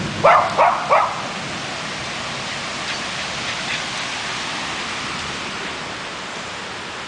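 Jack Russell terrier barking at thunder: three sharp barks in quick succession about a second in, then a few fainter barks around three to four seconds. Steady rain hiss runs underneath.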